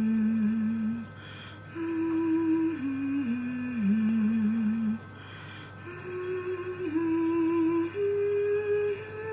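A slow, simple melody of single held notes in a near-pure tone, stepping up and down in pitch in short phrases with brief pauses between them.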